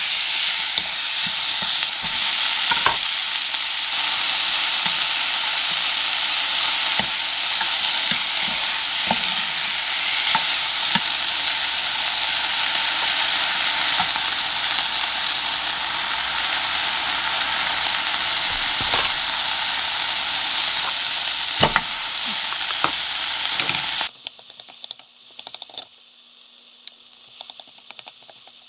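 Shrimp, tomato and green onion sizzling in a nonstick frying pan while a wooden spoon stirs them, with occasional sharp knocks of the spoon against the pan. The sizzle drops suddenly to a much fainter hiss about five seconds before the end.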